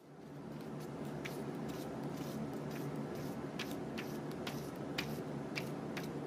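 Paper sheets being lifted and turned by hand, giving a string of light, irregular crinkling clicks over a steady background hiss.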